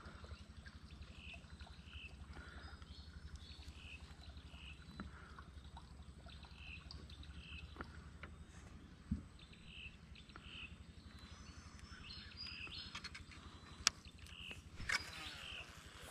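Short high animal chirps, mostly in pairs, repeating every second or so over a steady low pulsing hum, with a few sharp clicks, the loudest near the end.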